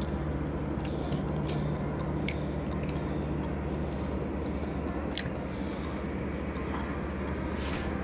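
A steady low motor hum, with scattered light clicks and ticks over it.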